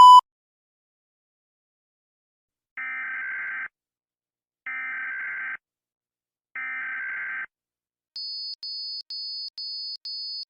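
Emergency Alert System SAME header: three data bursts of about a second each, a harsh warbling screech of two alternating tones. About 8 s in they give way to a high-pitched alarm beep pulsing about twice a second. A steady tone cuts off right at the start.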